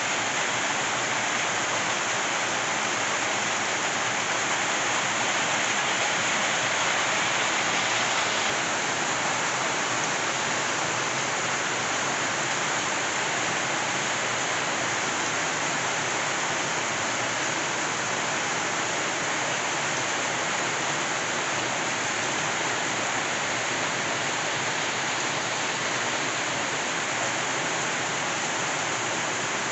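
Rain falling steadily on corrugated metal roofs and surrounding trees: an even, unbroken hiss that shifts slightly in tone about eight and a half seconds in.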